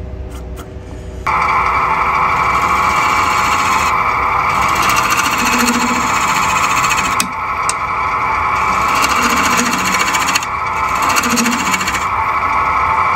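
A wood lathe spinning a purpleheart blank while a turning tool cuts across the end face to true it. The cut comes in suddenly about a second in and runs on as a loud, continuous cutting noise, easing off briefly a few times as the tool is lifted or shifted.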